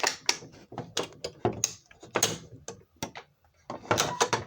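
A fire alarm pull station being handled: a quick, irregular run of sharp plastic and metal clicks and knocks, with a few short scrapes and a louder cluster of knocks near the end.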